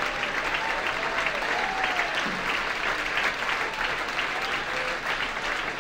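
Congregation applauding steadily, with a few voices calling out over the clapping.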